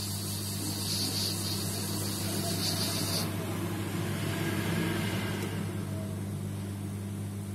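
Steady low electrical hum with a hiss over it; the higher part of the hiss drops away about three seconds in.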